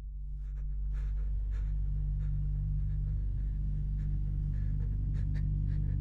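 Low, steady sound-design drone swelling in and holding, with scattered faint clicks and scratchy ticks over it.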